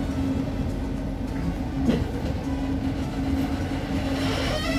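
Rail car running, heard from inside: a steady low rumble with a steady hum, and a short knock about two seconds in.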